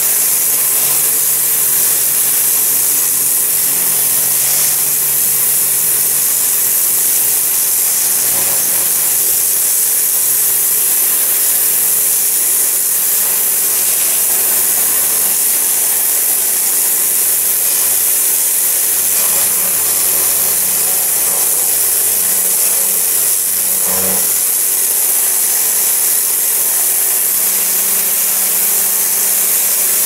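Pressure washer running steadily, its motor and pump humming under the loud hiss of the high-pressure water jet blasting moss and dirt off brick and concrete.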